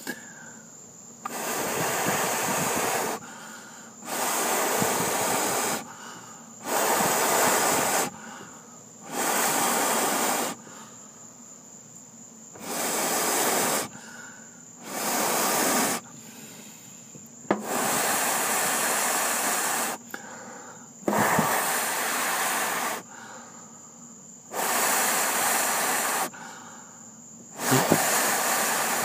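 A person blowing hard on glowing charcoal in long puffs of rushing air, about eleven of them with short breaths between, to fan the coals alight.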